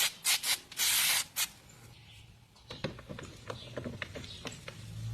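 Five short bursts of loud hissing spray in quick succession, the fourth lasting about half a second. After that come scattered light clicks and knocks over a faint low hum.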